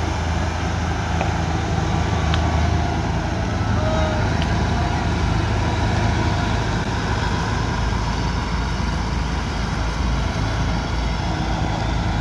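Kubota DC108X combine harvester running steadily under working load, a constant low engine hum with the even clatter of its machinery over it.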